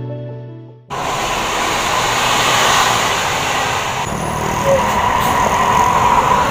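Background music fades out about a second in, then a cut to a loud, steady rushing noise with no clear rhythm.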